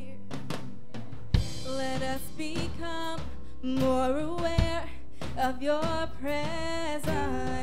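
Live gospel worship song: several voices singing over a band with drum kit, with sharp drum hits about a second and a half in and again near the middle.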